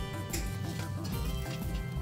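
Instrumental background music with steady held tones and a pulsing low end.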